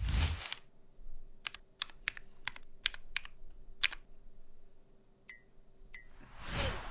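Keys pressed one at a time on a custom 75% top-mount mechanical keyboard (TKD PT.1/75, forged carbon fibre plate) with hand-lubed Geon Raw Zero linear switches and SW keycaps: about nine separate clacks. Two strokes near the end leave a short high ping. A short rush of noise comes at the start and again near the end.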